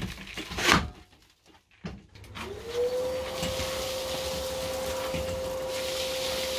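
A few knocks and clicks, then about two seconds in a Lumberjack BDE1200 1.2 kW shop vacuum switches on: its motor whine rises quickly to a steady pitch, with a steady rush of air through the dust-extraction hose.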